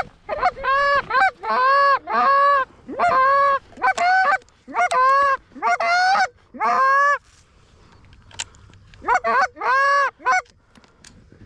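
Canada goose honking: loud runs of short, rising-and-falling honks, about two to three a second, breaking off about seven seconds in and returning as a short run of honks near the end.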